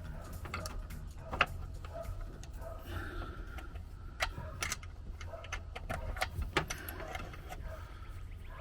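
Irregular light clicks and clinks of hand tools being handled, with a low steady hum underneath.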